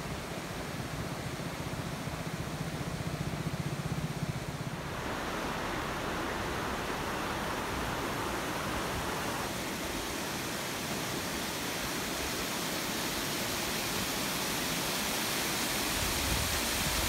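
Water rushing steadily over a small concrete weir spillway into a shallow river, a constant rush that grows slowly louder toward the end.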